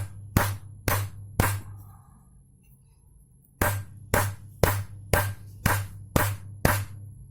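Background electronic music with a steady beat of about two beats a second over a pulsing bass. The beat drops out for about two seconds and then comes back.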